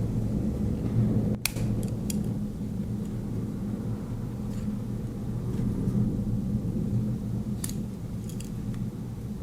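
A steady low rumble of a rainstorm outside, with a few sharp metallic clicks as the tools of a Victorinox Farmer X Alox Swiss Army knife are handled, about a second and a half in and again near the end.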